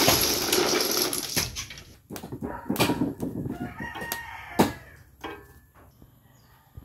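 A chicken calling, with pitched, gliding calls from about two seconds in, over a few sharp metal clicks as stainless-steel stove parts are handled, the loudest about four and a half seconds in. A loud rushing noise fades out over the first second and a half.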